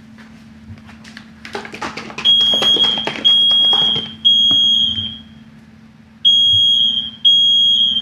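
Talking smoke alarm sounding its fire pattern: one high steady beep three times, a pause, then three more. It is set off by smoke from searing burgers in a cast-iron skillet. Just before the first beeps there is a brief clatter on the counter.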